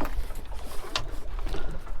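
Wind rumbling on the microphone and choppy water slapping the hull of a small boat drifting with its outboard off, with a sharp knock at the start and another about a second in.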